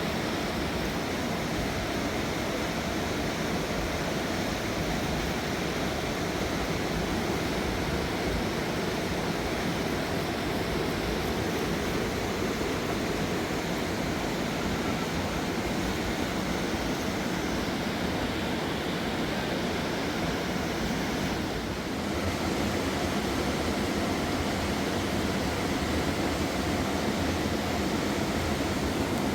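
Mountain river rushing over rocks: a steady, dense roar of water, with a brief dip about three-quarters of the way through.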